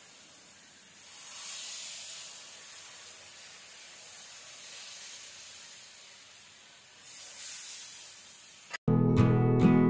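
Chakuli pitha batter hissing and sizzling on a hot flat pan over a gas burner, swelling as fresh batter goes on about a second and a half in and again near the end. Loud acoustic guitar music cuts in abruptly just before the end.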